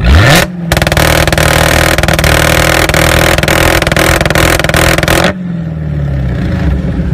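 Dodge Challenger Hellcat's supercharged 6.2-litre Hemi V8, revved with a quick blip, then held at high rpm with a rapid stutter for about four and a half seconds. It drops back to idle at about five seconds in.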